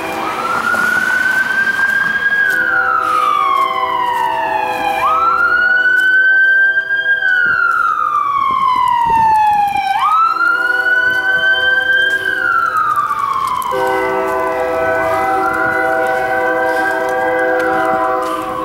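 An emergency vehicle's siren wailing, each cycle rising quickly and falling slowly, about every five seconds. Under it, from about three seconds in, an approaching freight locomotive's air horn sounds a steady chord, loudest near the end.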